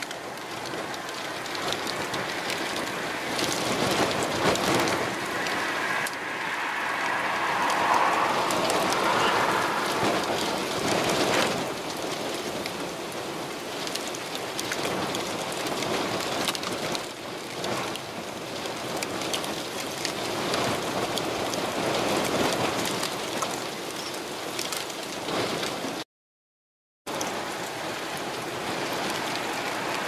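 Steady heavy typhoon rain with strong wind, an even hiss that breaks off for about a second near the end.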